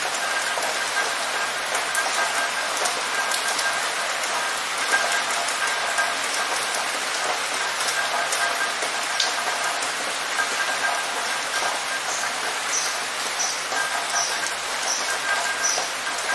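Steady heavy rain falling and splashing on a hard surface, a dense, even hiss.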